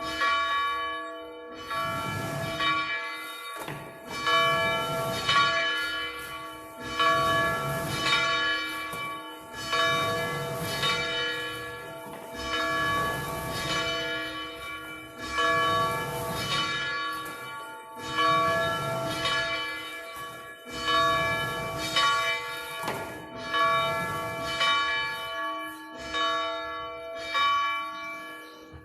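Church bells ringing, struck about every second and a half, each stroke leaving a long ringing hum that overlaps the next. The ringing stops at the very end.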